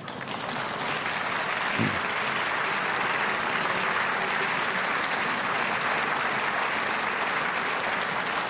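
Audience applauding, the clapping building up within the first second and then holding steady.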